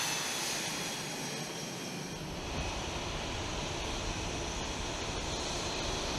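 F/A-18 Hornet's twin F404 turbofan jet engines running on the ground with a steady high turbine whine. About two seconds in, a deeper rumble builds under it and holds as the engines come up to power.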